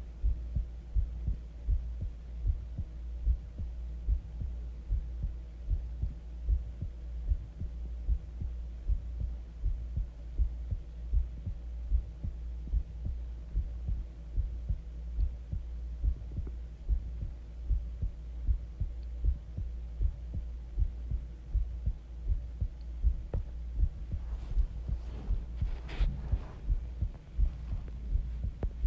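Human heartbeat heard close up: steady, evenly spaced low beats over a constant low hum. A brief scratchy rustle comes in near the end.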